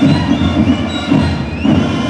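Panamanian marching band playing, with loud, dense drumming and high held tones above it.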